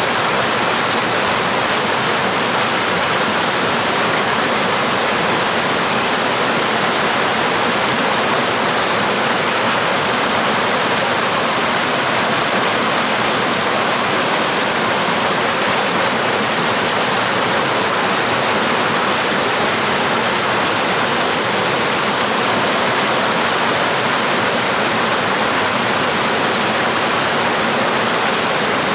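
Waterfall and stream water pouring and splashing in a steady, unbroken rush.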